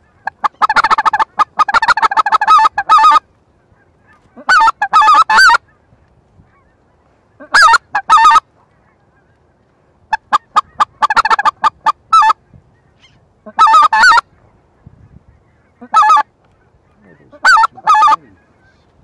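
Specklebelly (white-fronted goose) call blown by hand in loud bursts of quick, high yelping notes, about seven runs with short pauses between, imitating white-fronted geese to bring passing birds in.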